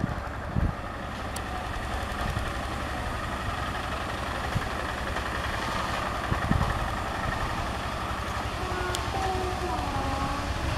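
Two-wheel hand tractor's diesel engine running steadily as it works the field, with a couple of short knocks, one about half a second in and one past the middle.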